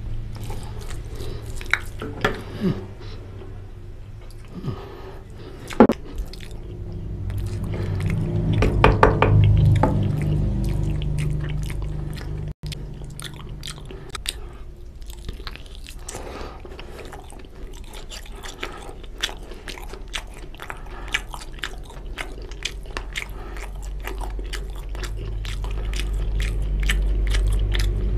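Close-miked chewing of mutton curry and rice, with many wet mouth clicks and smacks. The clicking grows denser in the second half.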